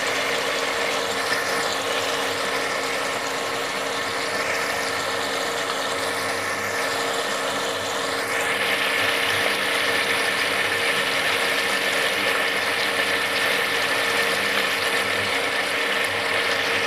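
Chicken pieces frying in hot oil in an aluminium pressure cooker: a steady, dense sizzle and crackle that grows a little louder about eight seconds in, with a faint steady hum underneath.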